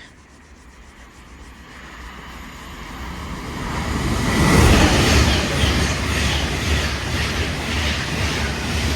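Class 390 Pendolino electric express train approaching and passing through the station at speed. It builds from faint to loudest about halfway, then holds as the coaches run past with a rhythmic clatter of wheels on the rails.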